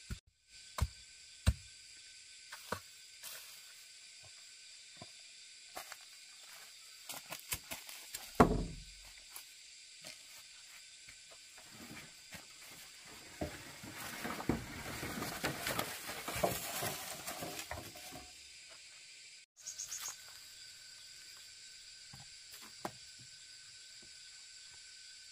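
A hoe chops into dry soil a few times, then there is one heavy thud and a stretch of rustling and scraping. A steady insect buzz runs underneath.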